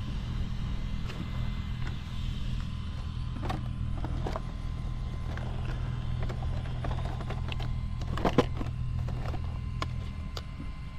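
Hands handling the plastic body shell of an Arrma Fireteam RC truck: a scattering of plastic clicks and knocks, the loudest about eight seconds in, over a steady low hum.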